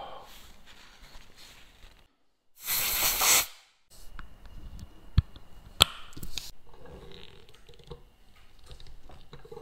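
A burst of blown air hisses for about a second, then two sharp clicks from small watch parts being handled while a sapphire crystal is fitted to a steel watch case.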